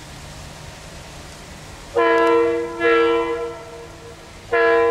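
Diesel freight locomotive sounding its multi-tone horn three times: two blasts about a second long back to back, then a third near the end, over a low steady engine rumble. The horn is a warning as the train approaches a level crossing.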